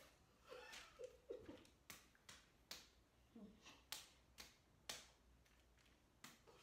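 A string of faint, sharp slaps of hands and fists striking palms during a game of rock, paper, scissors, with a few brief, quiet vocal sounds in between.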